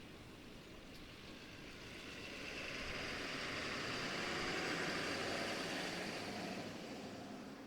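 Federal Signal 2001-130 rotating outdoor warning siren sounding its steady alert tone, the sound swelling and fading once as the rotating horn sweeps past, over wind noise.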